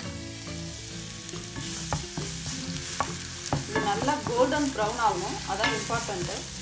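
Chopped onion dropped into hot oil in a non-stick frying pan, sizzling at once, then stirred about with a wooden spatula. A few knocks come about two to three seconds in, and wavering scraping sounds follow in the second half.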